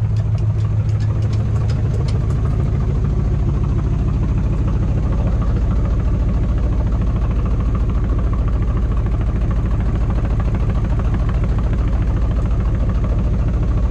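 GMC C50 tow truck's 400 cubic inch small-block V8 idling steadily after sitting for years. A few light clicks sound in the first couple of seconds.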